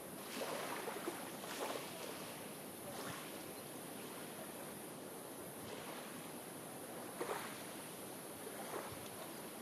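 Steady outdoor background noise with a constant high hiss, broken by a few brief louder rustling swells, the first about half a second in and another about seven seconds in.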